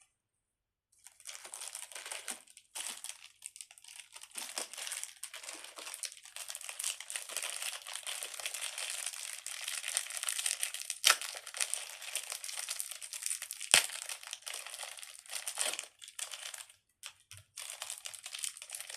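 Thin plastic packaging crinkling and rustling almost continuously as it is handled and opened, with two sharp clicks partway through.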